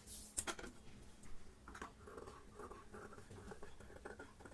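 Fabric scissors cutting through sequinned cloth: a couple of crisp snips near the start, then a run of faint, uneven scratchy cuts.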